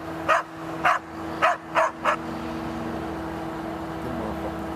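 A dog barking, about five sharp barks in the first two seconds, then stopping. A steady low hum runs underneath and is left on its own after the barks.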